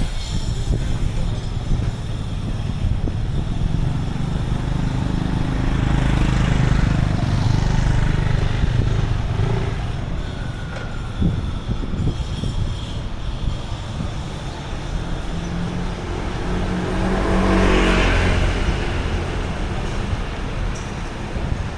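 Street traffic passing, with one vehicle going close by about six seconds in and a louder one near eighteen seconds. Under it is a low rumble of wind on the microphone.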